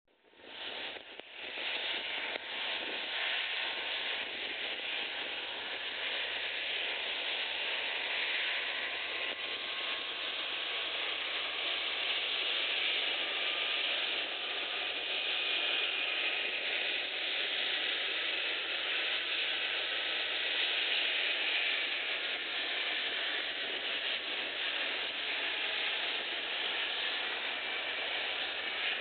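Handley Page Victor's four jet engines running as the bomber taxis: a steady rushing noise with a faint whine that drifts slightly in pitch.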